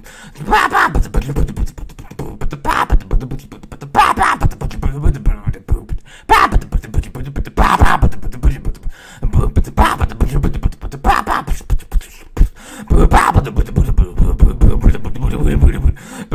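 Beatboxing: fast, even mouth-made percussion, with a louder vocal burst about every one and a half to two seconds.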